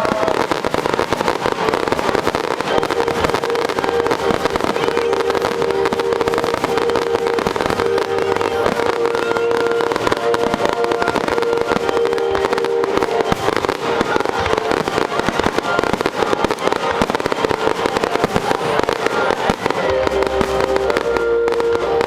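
Fireworks display going off: dense, continuous crackling and popping with no pauses, over music with long held notes.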